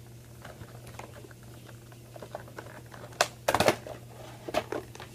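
A cardboard Funko figure box being opened by hand: a string of small taps, ticks and scrapes, with a louder burst of clattering rustle a little past halfway and another shortly after.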